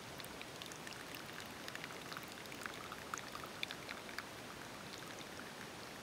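Thin stream of espresso from a Handpresso Wild Hybrid hand-pumped espresso maker trickling into a cup as it brews: a faint, steady patter with small scattered drip ticks.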